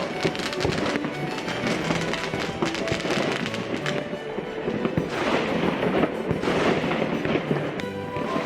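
Fireworks going off in rapid crackling bangs, swelling into a denser crackle about five seconds in. Classical music plays underneath.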